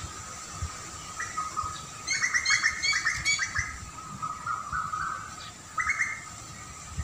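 Small songbird chirping in a rapid burst of short notes about two seconds in, with a shorter burst near six seconds. A steady thin high tone runs underneath.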